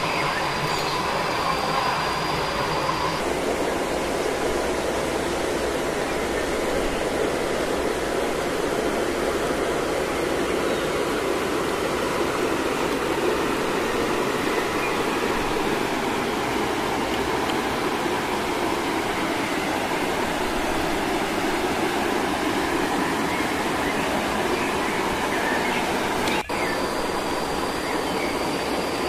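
Steady rush of falling water from a waterfall and stream, an even continuous hiss. A thin, steady high whine sits over it at the start and again near the end, with a brief dropout near the end.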